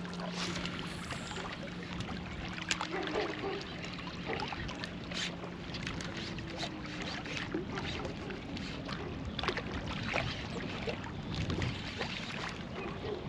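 Even rushing outdoor noise of wind and lapping water at the waterside, with scattered small clicks and knocks. A low steady hum runs underneath and stops about six seconds in.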